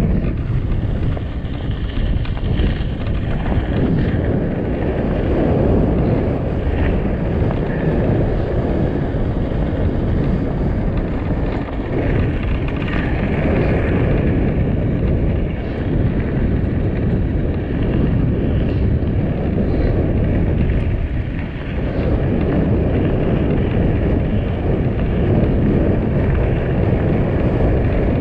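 Wind buffeting the microphone of a mountain bike descending a gravel fire road at over 20 mph, a loud steady low rumble, with the tyres rolling and crunching over the gravel.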